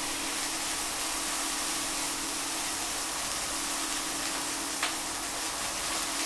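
Raw chicken pieces sizzling in hot oil in a pan with shallots and spices, an even steady hiss over a low steady hum, just after the chicken went in. A single light knock about five seconds in.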